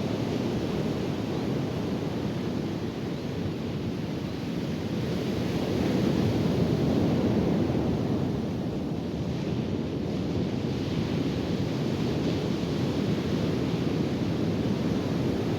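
Ocean surf breaking on the shore, with wind buffeting the microphone: a steady low rush that swells a little about six seconds in and eases again after about eight.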